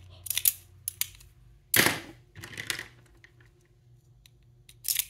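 Hard plastic LEGO pieces clicking and clacking as a small LEGO brick gun is handled and loaded with rod-shaped pieces: a handful of short, sharp clicks, the loudest about two seconds in and another near the end.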